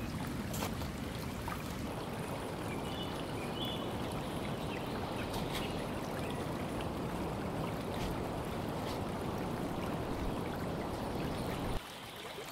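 Steady rushing of a flowing river, with a few light ticks and rustles from the blanket being handled on the tent floor; the rush drops away suddenly near the end.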